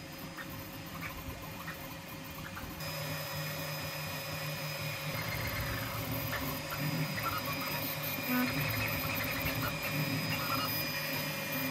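TwoTrees SK1 CoreXY 3D printer running a print, its motors and fans making a steady mechanical whine in several held tones that shift as the print head moves, with scattered faint ticks. It gets a little louder about three seconds in.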